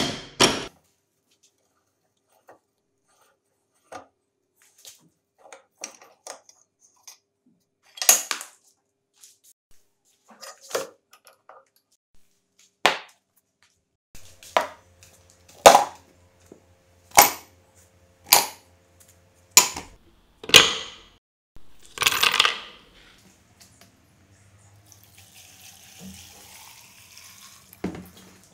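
Metal parts clinking and knocking as they are handled and set down: a dozen or so separate sharp hits, thickest in the second half, with a faint hum for a few seconds in the middle and a soft hiss near the end.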